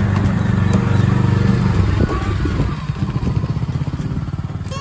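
Engine of a Kawasaki side-by-side utility vehicle running as it drives past and away, the sound gradually fading over the last couple of seconds.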